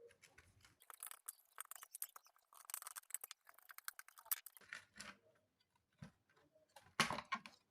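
Faint, quick clicks and scrapes of an opened LED flood light and its loose front glass being handled.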